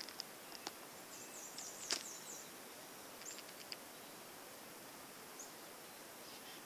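Quiet outdoor ambience with distant small birds chirping high, including a quick run of chirps about a second in. A few faint sharp clicks are heard, the loudest about two seconds in.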